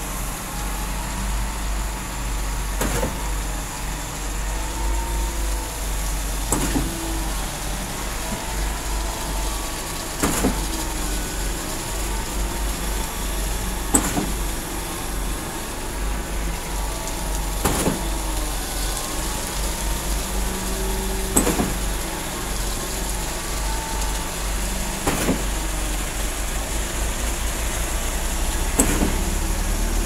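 Truck-mounted JunJin concrete boom pump on a UD Quester truck running steadily on its diesel engine while pumping concrete. A sharp knock comes about every three and a half seconds as the pumping cylinders switch stroke.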